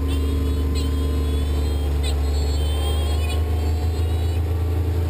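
Small boat motor running steadily with a low, even hum. It comes up to speed just before this point and then holds. Several short high chirps sound over it at intervals.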